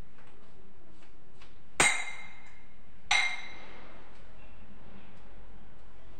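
Two sharp, ringing clinks about a second and a half apart: a spoon knocking against the rim of a bowl of whipped cream.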